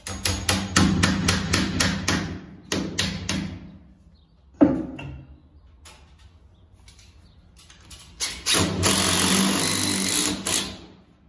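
Hammer tapping a long screw into the wall rail, quick light taps at about five a second in two runs, then one louder knock a little after the middle. Near the end a cordless driver runs for about two and a half seconds, driving the screw home.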